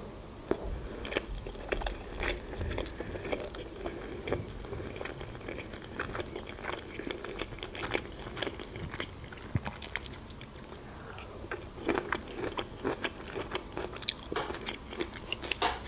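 A person chewing a mouthful of sushi roll, with soft, wet mouth clicks and smacks coming irregularly, a little louder in the last few seconds.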